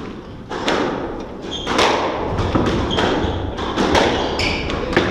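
Squash rally: the ball cracking off rackets and smacking the court walls, a sharp hit every half second to a second, with short high squeaks of shoe soles on the wooden floor.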